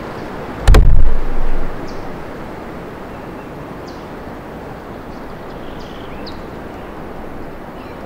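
Steady wind through forest trees, with faint short bird chirps now and then. About a second in, a sudden loud low thump comes and rumbles away within about a second.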